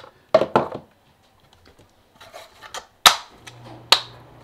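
Hard plastic knocks and small clicks as a 3D-printed rugged box is handled, then two sharp snaps about a second apart as its clip latches are flipped open. A faint low hum comes in just before the second snap.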